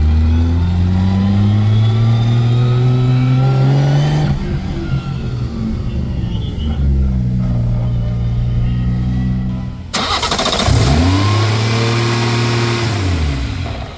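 BMW B58 turbocharged straight-six pulling under acceleration, its pitch rising for the first four seconds, then running more evenly. About ten seconds in the sound changes abruptly to one rev that rises and falls back, ending sharply.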